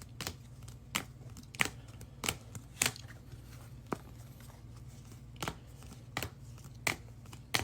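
Trading cards being handled on a table: about ten sharp, irregular taps and clicks as cards and holders are picked up and set down.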